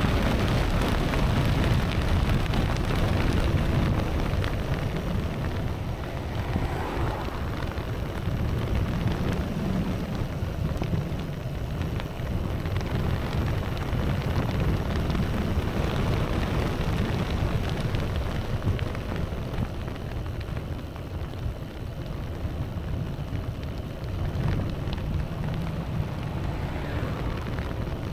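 Wind rumbling on the microphone while riding a bicycle: a steady low buffeting noise that swells and eases.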